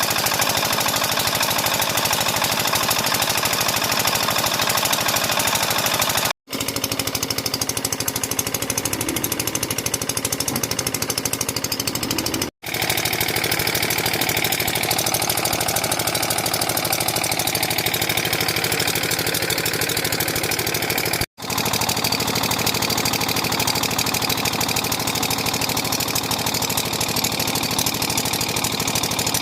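JCB 3DX backhoe loader's diesel engine running with a rapid, even knocking clatter. It breaks off for an instant three times.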